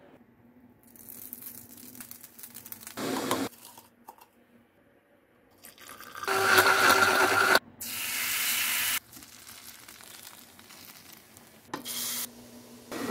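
Water poured into a tall clear jar, a splashing, filling pour of about three seconds in the middle with a brief break. Shorter, quieter handling noises come before and after it.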